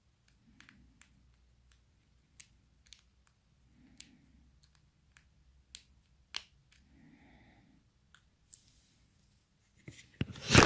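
Small, sparse clicks and ticks of a precision screwdriver and tiny screws being driven into the iPhone 6's internal bracket. A louder burst of rustling noise comes near the end.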